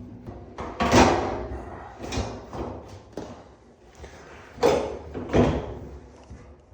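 Dryer parts being handled during reassembly: a series of about six clunks and knocks, the loudest about a second in.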